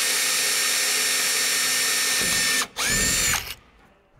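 Power drill running steadily as it bores a hole through a truck's fiberglass hood for a light's power wire. About two and a half seconds in it stops, spins up again briefly with a rising whine, then stops.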